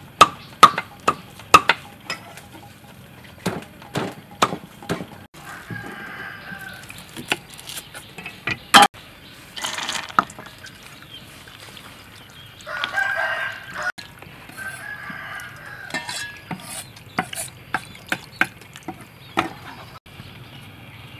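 Cleaver chopping on a thick wooden chopping block, sharp knocks about twice a second at first, then scattered chops. A rooster crows a couple of times.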